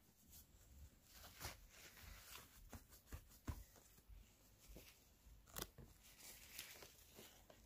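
Soft paper rustling and crinkling with several sharp light ticks as a magenta-ink-stained paper towel is handled. The two loudest ticks come about three and a half and five and a half seconds in.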